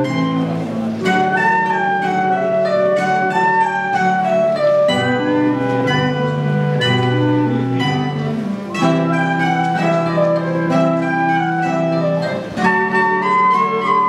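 Flute and mandolin playing live together: the flute carries a melody of held, stepping notes over plucked-string accompaniment, with a short break between phrases near the end.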